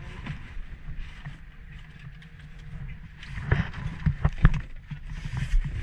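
Low steady rumble of wind and sea around a small open wooden boat while a longline is hauled in by hand. About three seconds in, a run of sharp knocks and thumps starts and continues, the loudest sounds here.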